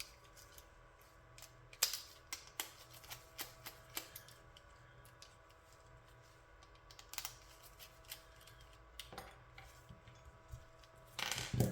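Light, irregular clicks and taps of small tools on the plastic shell, screws and internal parts of a Joy-Con being disassembled, with a louder burst of handling near the end. A faint steady hum sits underneath.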